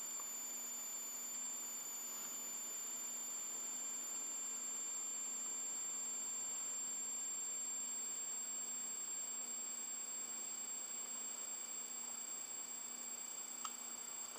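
Steady high-pitched electronic whine over a faint low hum and hiss, with one small click near the end.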